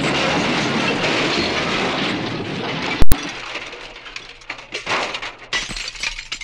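A skeleton and its chain and bucket clattering and rattling down a stone well shaft, with echoing knocks. There is one very loud sharp crack about three seconds in, after which the knocks thin out and fade.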